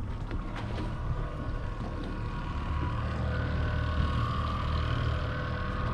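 Boat's outboard motor running steadily, a continuous low hum with a few level tones above it.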